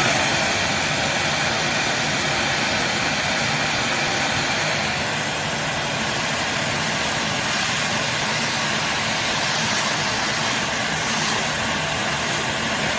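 Craftsman 4-gallon, 5-peak-HP wet/dry shop vac running steadily: a pretty noisy, even rush of motor and air with no change in pitch or level.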